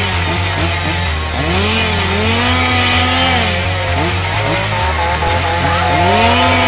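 Petrol chainsaw revving several times: the engine note climbs, holds at high revs for a second or two, then drops back. Electronic music with a steady bass beat plays under it.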